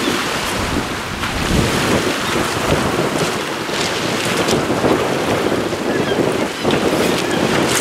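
Strong wind buffeting the microphone over waves breaking and washing onto a gravel beach.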